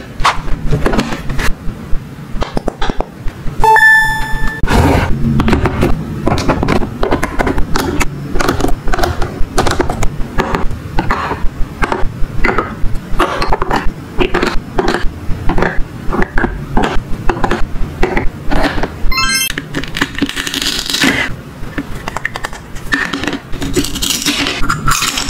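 Plastic toy kitchen pieces being handled, with many clicks, taps and scrapes of plastic on plastic. A short electronic beep sounds about four seconds in.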